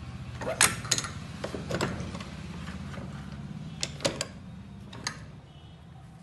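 Metal clicks and knocks from a portable UPVC window welding machine as its screw clamps are worked by hand: a few sharp strikes in the first two seconds, another quick cluster about four seconds in and one more about a second later, over a steady low hum.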